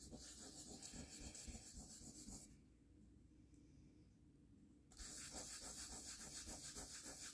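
Sandpaper rubbed by hand over the edges of cast resin dominoes to round off their sharpness: two spells of quick back-and-forth rasping strokes, the first about two and a half seconds long, the second starting about five seconds in, with a short pause between.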